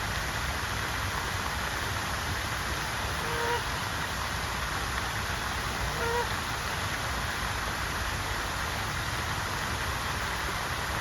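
Canada goose giving two short honks, about a third of the way in and again just past halfway, over a steady rushing noise.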